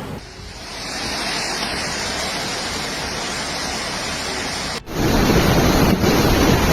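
Steady rush of floodwater. About five seconds in it cuts abruptly to a louder, deeper rush.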